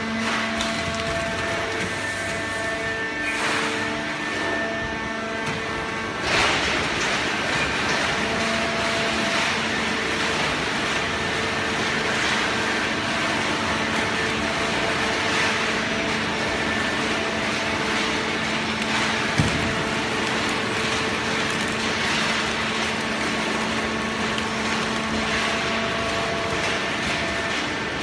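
Fully automatic horizontal hydraulic cardboard baler running: a steady hum of its hydraulic pump and motor holding several tones, joined by a louder rushing machine noise about six seconds in. A single short click comes about two-thirds of the way through.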